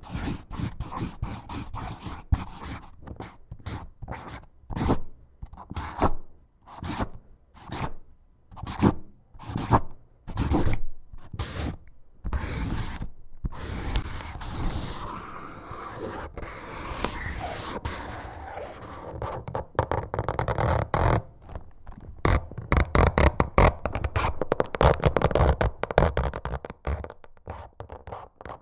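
Repeated scraping sounds in separate strokes, spaced apart at first, then running closer together and faster near the end.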